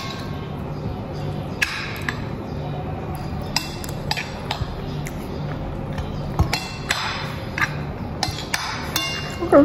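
A metal spoon scraping and clinking against a plate of rice, in scattered short taps and scrapes, over a steady low hum.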